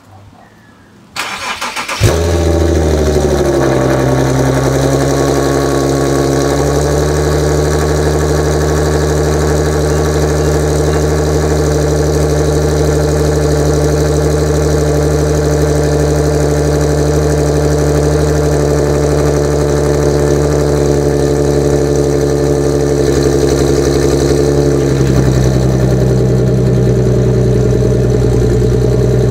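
2014 Infiniti Q50 Sport's V6 cranked over by the starter and catching about two seconds in: a cold start. It flares to a high idle that eases down over the next few seconds, runs steadily, then drops to a lower idle near the end. The exhaust runs through unresonated test pipes with a resonated Y-pipe and rear section.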